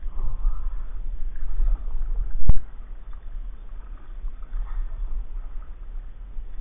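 Jackson Big Tuna kayak under way on calm water: a steady low rumble and faint water noise, with one sharp, loud knock about two and a half seconds in.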